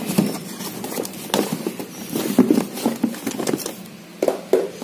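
Paperboard product boxes being handled inside a cardboard carton: irregular knocks, taps and scrapes of box against cardboard.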